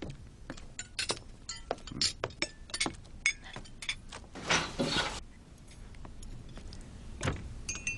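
Cutlery and dishes clinking at a meal table: a run of light, sharp clinks of knives and forks against plates and glasses, with a brief noisy rush about halfway through.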